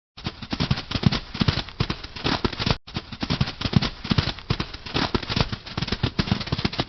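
Lion growling: a loud, rough, rapidly pulsing rasp with a short break a little under three seconds in.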